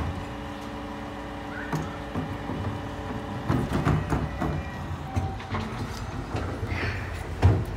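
Bin lorry's engine and Terberg OmniDex hydraulic bin lift running with a steady hum, with several knocks and bangs as a black wheelie bin is tipped and shaken on the lift, the loudest near the end.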